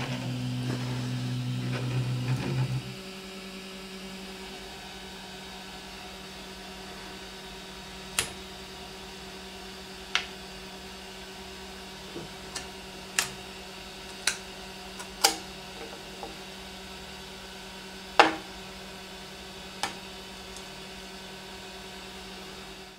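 3D printer's stepper motors whining steadily through a print, stopping about three seconds in. A steady fan hum continues after that, broken by a dozen or so sharp clicks.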